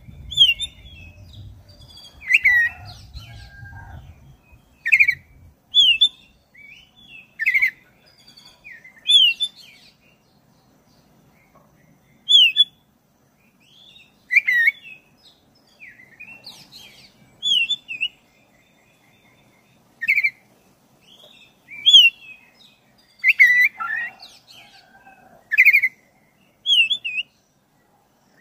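Black-breasted oriental magpie-robin singing short, loud whistled phrases with quick slurred notes, one every two to three seconds. A low rumble runs under the first few seconds.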